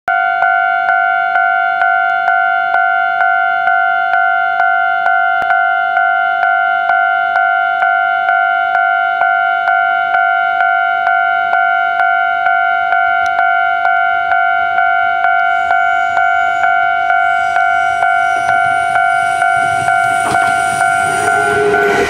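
Japanese level crossing warning bell ringing steadily at about two strikes a second, each ring decaying. In the last few seconds the rumble of an approaching Kintetsu 2610 series electric train builds as it reaches the crossing.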